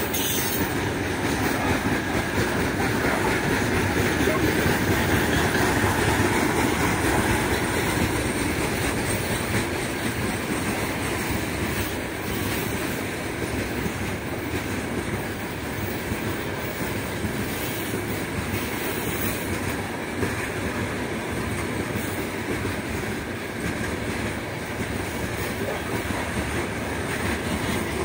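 Open-top gondola wagons of a heavy freight train rolling past on the rails: a steady rumble and clatter of wheels. It is loudest a few seconds in, then eases as the wagons draw away.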